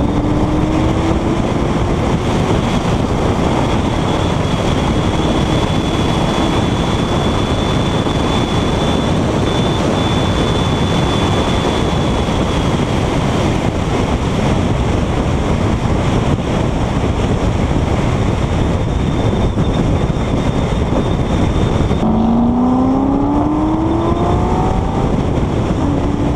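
Steady wind and road noise over a hood-mounted microphone on a Corvette driving at road speed. Under it is the V8 engine note, which rises briefly at the start and climbs again as the car accelerates near the end.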